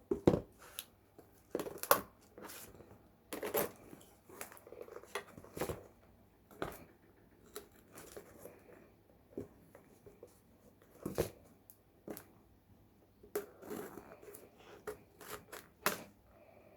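Small packaging being opened and handled: irregular crinkling and tearing of the wrapping, with sharp clicks and taps as the small parts and packet are handled.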